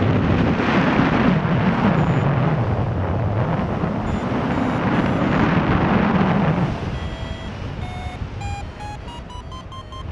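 Wind buffeting the microphone in flight, loud for about the first seven seconds and then easing. As it drops, a paragliding variometer beeps in short tones about twice a second, climbing steadily in pitch: the climb tone of the glider rising in lift.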